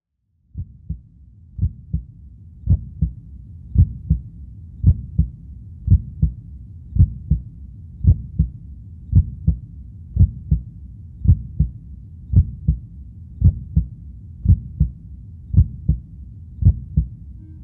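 Slow heartbeat sound effect: paired low lub-dub thumps about once a second over a steady low rumble, beginning about half a second in.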